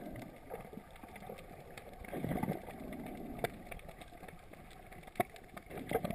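Muffled underwater water noise heard from a camera held below the surface: low sloshing and rumbling of moving water that swells twice, with a few sharp clicks.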